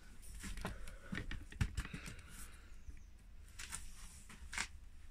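Handling noise of a camera being set back on its tripod: scattered light clicks, taps and knocks over a steady low rumble.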